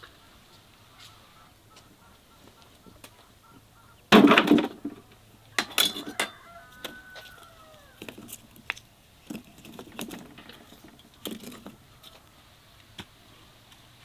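Domestic fowl calling, with a loud squawk about four seconds in and another near six seconds that trails off in falling, pitched cries. Faint chirping early on, and scattered light knocks and clicks through the second half.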